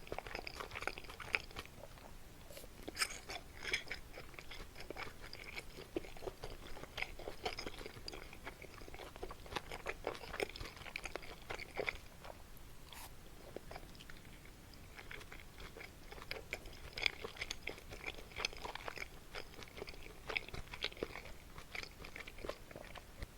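Close-miked chewing of kimchi and meat dumplings: continuous wet chewing with many small crunches and clicks, a few sharper ones about three seconds and thirteen seconds in.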